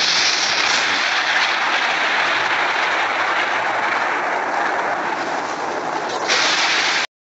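Explosion sound effect: a loud, steady rushing roar with no separate bang. It gets brighter about six seconds in and cuts off abruptly near the end.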